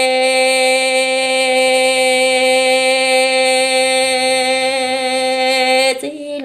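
A singer's voice holding one long, steady note in Hmong kwv txhiaj sung poetry, which breaks and slides down in pitch near the end.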